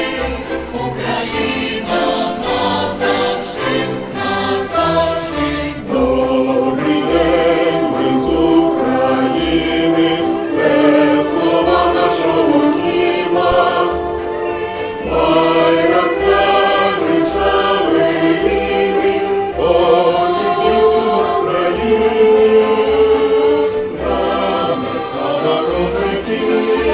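Choir singing a Ukrainian song over an accompaniment with a steady low bass beat.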